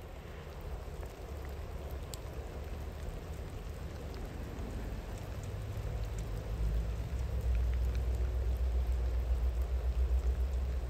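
Steady rain falling, with scattered faint drop ticks, over the low rumble of a distant train, which grows louder about two-thirds of the way through.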